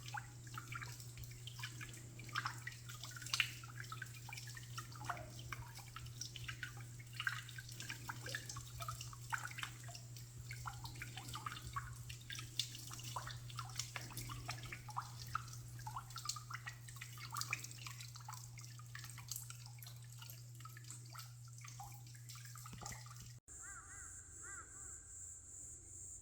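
Water dripping and trickling in many small, irregular drops. After a sudden cut near the end, insects chirp steadily.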